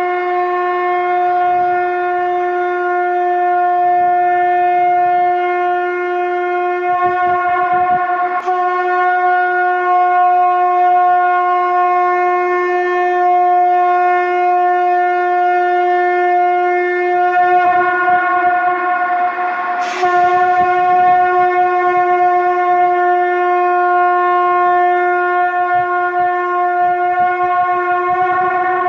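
Conch shell (shankh) blown in a long, steady note with a clear pitch and many overtones, with brief breaks in the tone about eight and twenty seconds in.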